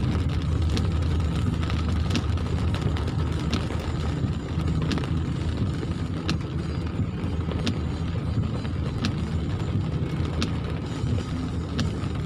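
Steady low engine and tyre rumble heard inside a car driving on a wet road, with a light click about every second and a half.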